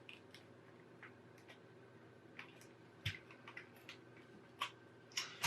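Scattered faint clicks and taps of Nintendo 2DS plastic housing parts being handled and slotted together, with a sharper click near the end.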